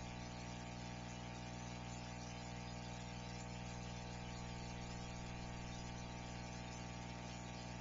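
Steady electrical hum and buzz with many even overtones over a constant hiss.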